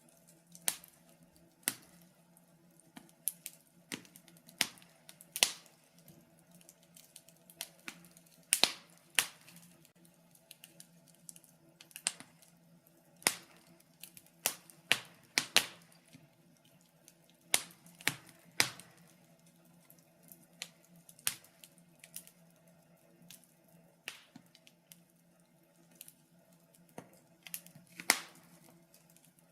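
Wood fire in a fireplace crackling, with irregular sharp pops and snaps over a faint steady hum.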